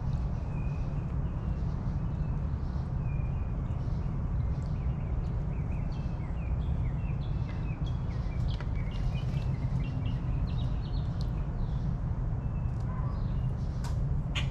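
Small backyard birds chirping in short, scattered high calls over a steady low rumble.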